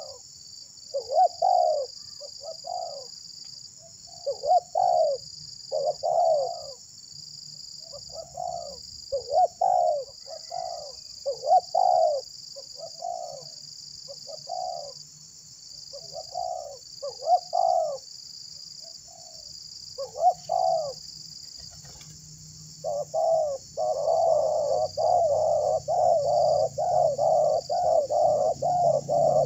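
Spotted doves cooing: short coos in irregular groups, then a fast, unbroken run of coos over the last six seconds.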